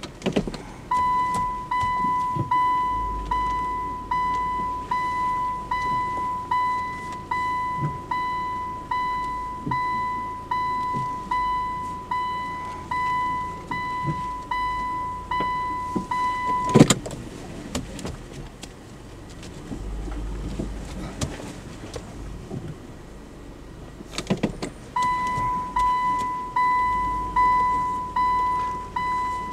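A car's in-cabin reverse-gear warning beeping, a single pitched beep about one and a half times a second, as the car is backed up while manoeuvring round a tight bend. The beeping stops with a clunk a little past halfway and starts again about eight seconds later, with a low rumble underneath.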